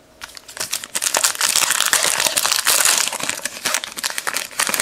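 Foil wrapper of a Panini Illusions football card pack being handled and opened by hand: a dense run of crinkling and crackling, loudest in the middle, stopping abruptly near the end.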